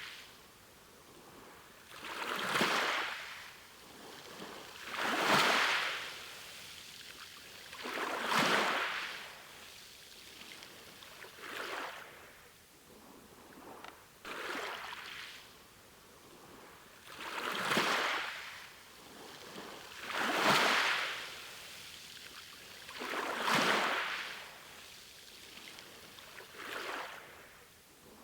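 Sea waves breaking and washing on a shore. The surf swells into a rushing hiss about every three seconds, nine times in all, and falls back to a quieter wash between waves.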